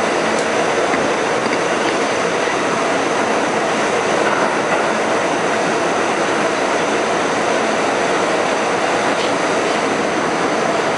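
Westinghouse R68 subway car running at speed through a tunnel, heard from inside the car: a steady, loud rumble of wheels on rail.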